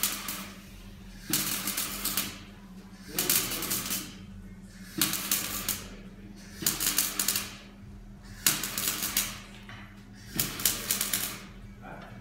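Electric arc welding on a car's steel exhaust pipe: six short runs of crackling, each about a second long, roughly every two seconds, as the pipe joint is stitch-welded. A steady low hum runs between them.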